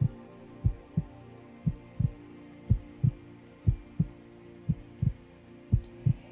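Recorded heartbeat, slow and even: a double lub-dub thump about once a second, over a steady low drone.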